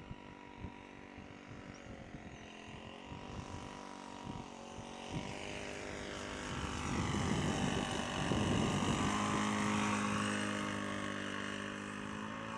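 The MBM 32 cc four-stroke gasoline engine of a quarter-scale model airplane, turning a 20 x 8 inch propeller, runs at a steady pitch as the plane flies past low. It grows louder to its loudest about eight to ten seconds in, then eases off as the plane climbs away.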